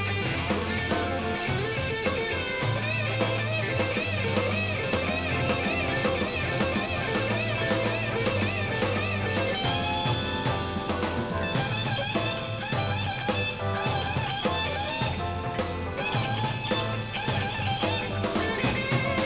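Live rock band: a Gibson double-neck electric guitar plays lead lines of bent, wavering notes over a drum kit and bass guitar.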